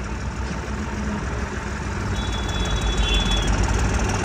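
Bulldozer's engine running steadily, growing slightly louder, with a faint high tone for a second or so midway through.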